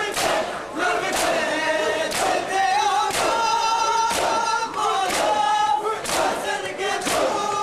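A large crowd of male mourners chanting in unison during matam, beating their chests together in a steady rhythm of about one loud slap a second.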